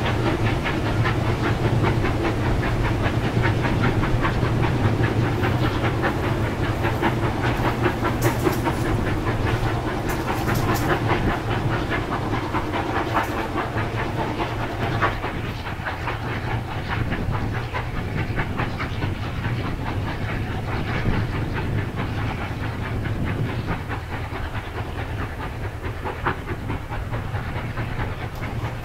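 NSW 36 class 4-6-0 steam locomotive 3642 working hard up a steep grade, its exhaust beating steadily, with the passenger carriages' wheels clicking over the rail joints and a steady low drone beneath. The sound fades slowly as the train draws away.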